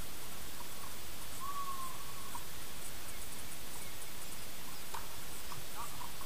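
Steady outdoor background hiss, with a few faint short chirps, one of them drawn out for about a second, and a faint tap about five seconds in.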